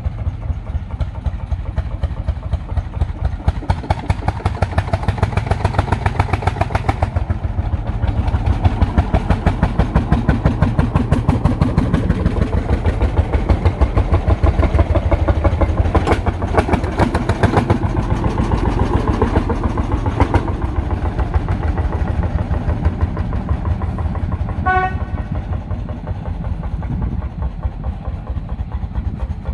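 Lanz Bulldog tractors' single-cylinder two-stroke hot-bulb engines running as they drive past, with a rapid, even beat that grows loudest as one tractor passes close by. A short tone sounds once near the end.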